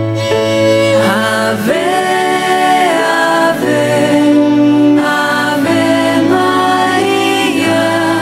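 A Christian hymn sung by voices over a held instrumental accompaniment.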